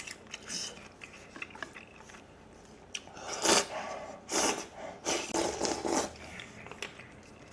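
Close-miked eating sounds: light chewing, then from about three seconds in several loud slurps as jjajang black-bean sauce is drunk straight from a plastic bowl.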